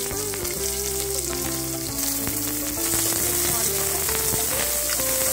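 Sliced onions sizzling steadily in hot oil with tempering spices in a pressure cooker. A slow instrumental melody plays underneath.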